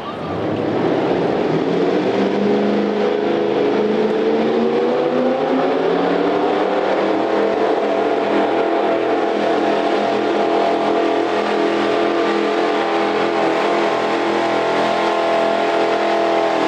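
Super stock pulling tractor's engine at full throttle during a pull. It comes in loud about half a second in, the revs climb for the first several seconds, then it holds a steady high pitch.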